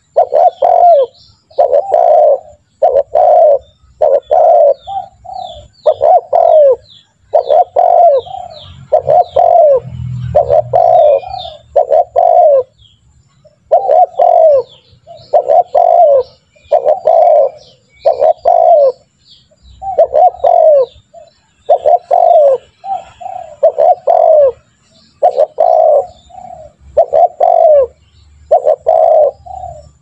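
Spotted dove (tekukur) cooing, a steady run of short coos about one a second, with a couple of brief pauses.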